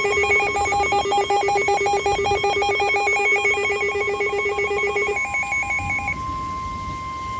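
An electronic alert alarm pulses rapidly between pitches, like a ringing phone. About five to six seconds in it gives way to a single steady tone near 1 kHz, the weather-radio warning alert tone that comes before a broadcast warning.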